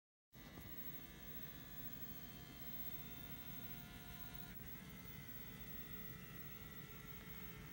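Faint steady electrical hum with several thin high tones from a powered-on Magnasonic CRT TV-DVD combo unit; some of the tones change about four and a half seconds in.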